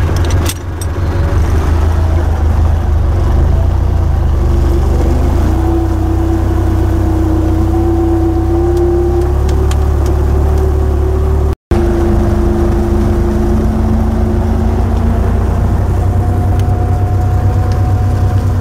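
MTZ-82 tractor's four-cylinder diesel running steadily while driving under load, heard from inside the cab, with a deep rumble and a tone that slowly rises in pitch. There are a couple of clicks near the start and a brief gap a little past halfway.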